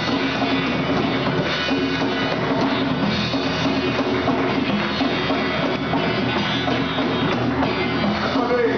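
Band playing a rock-style gospel song on drum kit and guitar, an instrumental passage without lead vocal.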